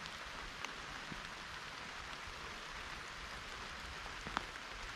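Light rain falling, a steady patter with a few louder single drops standing out, the clearest one near the end.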